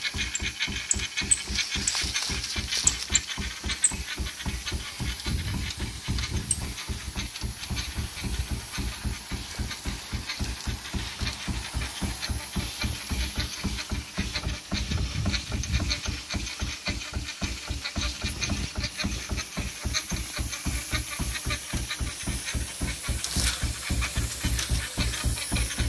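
Marshall 7hp portable steam engine running under steam: its exhaust beats in a fast, even rhythm over a steady hiss of steam.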